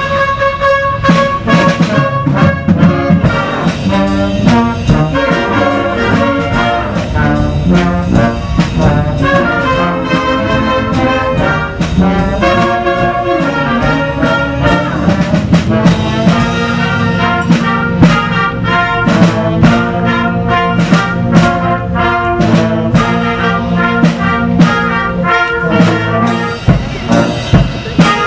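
A band playing music with brass horns over a drum kit beating out a steady run of hits.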